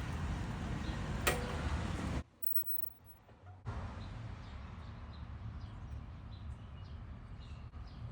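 Front suspension of a Tesla Model X giving one sharp click over a bump about a second in, over steady road noise. The click comes whenever the car goes over bumps, and its exact source in the front suspension is unknown. The sound cuts out briefly just after two seconds, then the road noise returns.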